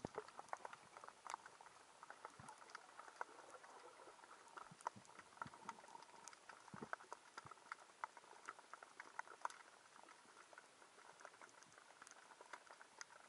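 Faint underwater crackle heard through a camera's waterproof housing: many irregular sharp clicks and pops over a low, steady hiss.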